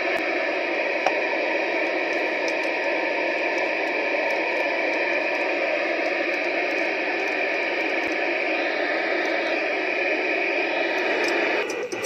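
Icom IC-2100 FM transceiver's speaker giving a steady loud hiss of receiver noise with the squelch open, the no-signal noise that the set had not been producing before its receive IC was replaced; it cuts off shortly before the end.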